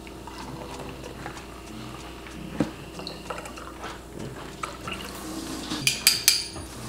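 Canned energy drink being poured from an aluminium can into glass tumblers, liquid trickling into the glass, with light kitchen clicks and a cluster of sharp clinks about six seconds in.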